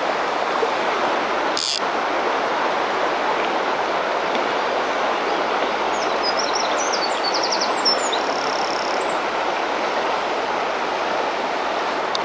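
Steady rush of a large, fast-flowing mountain river's current around the wading angler.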